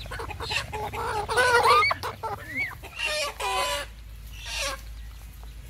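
Chickens clucking in a busy string of calls through the first four seconds, loudest near the two-second mark, then only a call or two. A steady low hum runs underneath.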